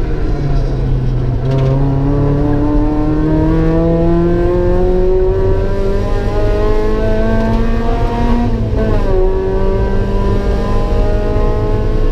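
Mazda MX5 NA's 1.8-litre four-cylinder engine heard from inside the cabin under hard acceleration on track, its pitch climbing steadily for several seconds. About nine seconds in the revs drop sharply, then rise again.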